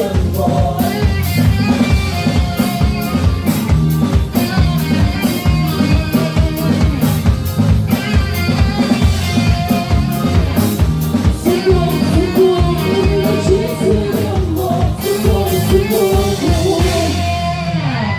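Live band music played through a stage sound system: a fast, even drum-kit beat under bass, keyboard melody and chords, with some singing. The music fades out right at the end.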